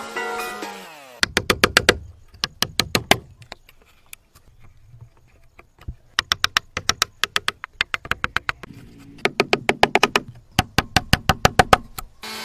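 Background music: a synth tone that glides down and fades out in the first second, then a sharp, clicky electronic percussion beat, with a quieter gap of about two seconds in the middle.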